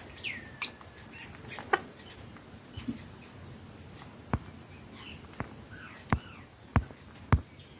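Ringneck parrot giving one short whistle that falls in pitch near the start, then a few soft chirps. From about four seconds in come several sharp taps or clicks, the loudest sounds.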